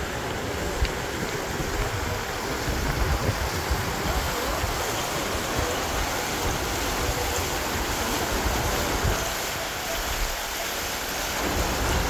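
Low fountain jets bubbling and splashing into a shallow pool: a steady rush of water, with wind buffeting the microphone.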